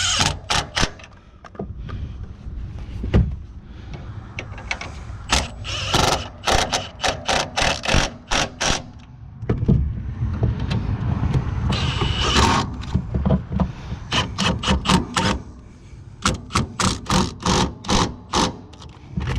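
Hand ratchet clicking in several runs of quick clicks, about three or four a second, as the upper strut mount nuts are snugged down.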